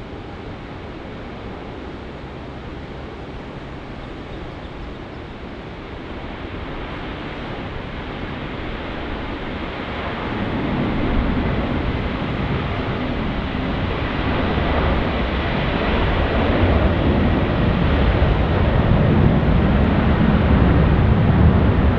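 Airbus A330 jet engines at takeoff power on its roll down the runway: a broad rumble and hiss that grows steadily louder, jumping up about ten seconds in as the jet draws nearer.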